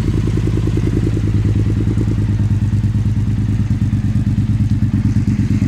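Triumph Street Twin's 900 cc parallel-twin engine idling steadily through twin aftermarket slip-on mufflers, just after a start: a deep, even exhaust beat with thick bass and no rasp.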